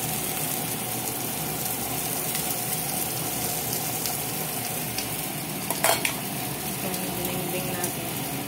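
Fish frying in oil in a nonstick pan: a steady sizzle, with one sharp clack of a utensil or pan about six seconds in.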